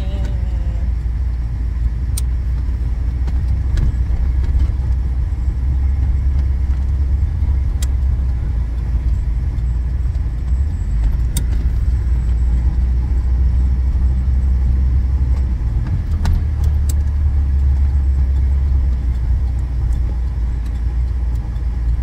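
Steady low road rumble inside a moving car's cabin, engine and tyre noise, with a few light clicks now and then.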